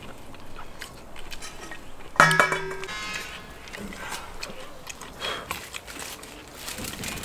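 People eating at an outdoor table, biting and chewing raw garlic and roast lamb, with one sudden ringing note about two seconds in that fades within a second.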